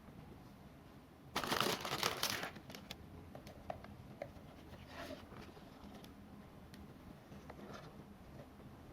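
Model-kit packaging being handled, with a loud burst of crinkling for about a second, then scattered light rustles and clicks.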